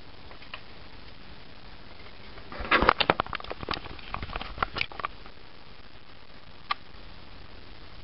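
Handling of airsoft rifle and grenade launcher parts: a quick cluster of sharp clicks and knocks for about two and a half seconds in the middle, then one more click, over a steady faint hiss.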